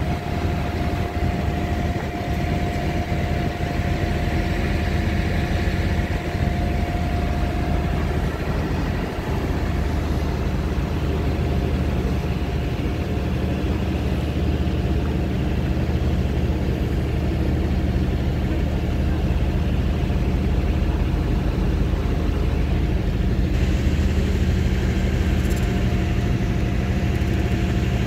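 A passenger ferry's engine running steadily under way, a low drone with a thin steady whine above it that is clearest in the first few seconds.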